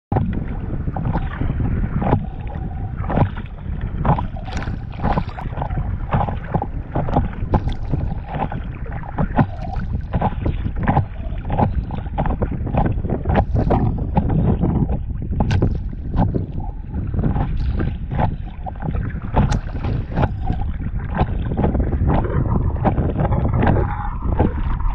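Water splashing and slapping against an inflatable paddleboard while it is paddled through choppy water, with many short sharp splashes over a steady low rumble of wind on the microphone.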